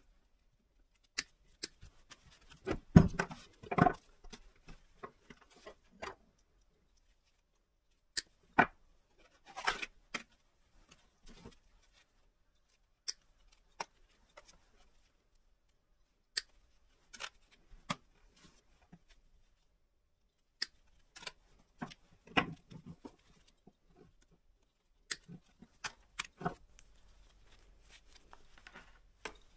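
Side cutters snipping wires off a water pump's motor parts: sharp snips and clicks at irregular intervals, with a louder clatter of handled parts about three seconds in.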